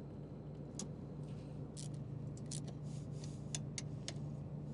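Hand tools working on a combine header's cutterbar while a broken knife section is swapped for a new one: irregular sharp metal clicks and ticks over a steady low hum.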